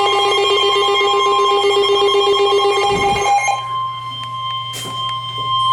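Emergency Alert System warning alarm: a steady, high single tone near 1 kHz sounds throughout. For the first three and a half seconds a second, rapidly pulsing buzzy tone sounds over it, then stops, leaving the plain tone.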